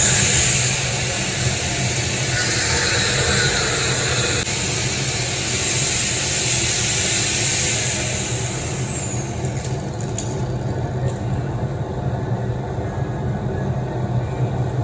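Angle grinder with a thin cutoff wheel cutting through half-inch steel rod, a harsh hiss over a high whine for about eight seconds; then the wheel is released and its whine falls as it spins down. A steady low hum runs underneath throughout.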